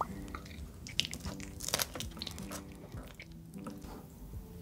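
Close-miked wet, sticky sounds of a pizza slice being dipped into and lifted out of a bowl of thick cheese sauce, with scattered irregular clicks and smacks.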